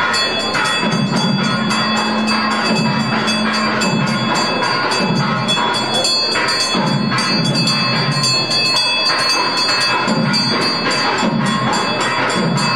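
Music with a bell ringing steadily, its high tones held without a break.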